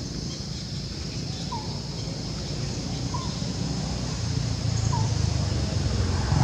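A motor vehicle's engine running, growing steadily louder as it approaches. Three short high chirps, evenly spaced about a second and a half apart.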